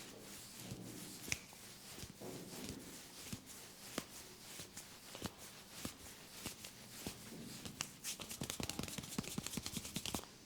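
Fingers rubbing and scratching through hair on a scalp during a head massage, heard close up as soft rustling with scattered crackles. Near the end it turns into a quick run of many crackling scratches.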